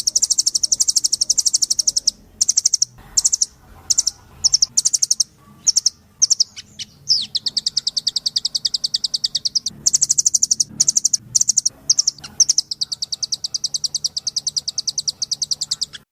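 Velvet-fronted nuthatch calling in rapid, high, rattling trills of sharp repeated notes. Several short bursts come first, then two long trills, the second running to the end.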